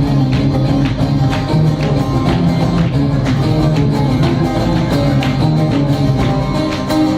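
Live band music: plucked string instruments playing over hand percussion that keeps a steady beat.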